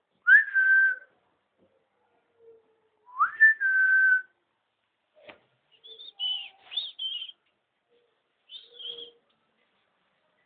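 Whistling: two loud notes, each sliding up and then held for under a second. Higher, wavering squeaky tones come in the second half.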